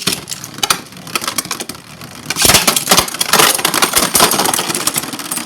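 Beyblade Burst tops spinning and colliding in a plastic stadium: dense rattling and clicking with many sharp hits, growing louder for a couple of seconds in the middle as the tops clash hard.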